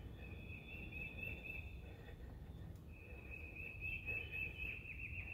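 A high, steady trill lasting about two seconds, then a second, longer one starting about three seconds in, from a small wild animal, over low background rumble.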